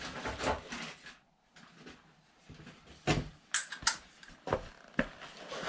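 Lug nuts being fitted and run onto the wheel studs of a Range Rover Sport's wheel, with a 22 mm long socket. There is scraping and rattling of metal at first, then a series of sharp metallic clicks roughly half a second apart.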